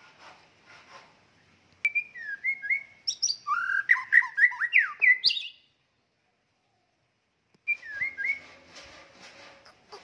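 White-rumped shama singing: a fast run of varied, sliding whistled notes, then after a pause of about two seconds a second phrase that opens the same way and trails off into softer chattering notes.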